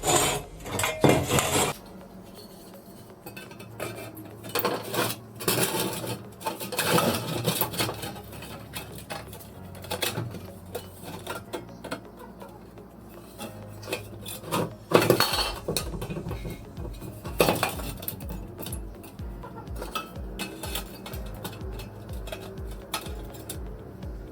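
Metal parts and tools clinking and knocking against each other in irregular bursts, the loudest knocks about a second in, around 15 s and near 17 s, over background music with a steady low beat.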